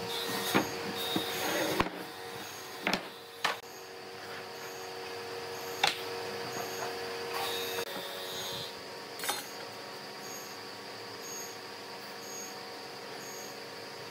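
A handful of sharp knocks and taps, spread out and irregular, over a steady hum whose tone cuts off about eight seconds in.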